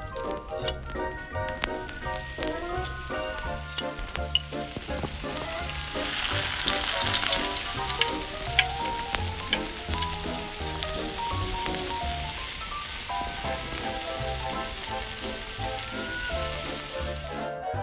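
Beef steak sizzling as it fries in hot oil in a small metal pan. The sizzle grows loud about six seconds in and cuts off just before the end, with a few light clicks in the first seconds.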